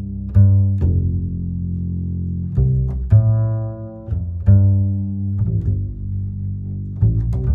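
Background music of low plucked notes, each starting sharply and ringing out as it fades, a new note every half second to a second.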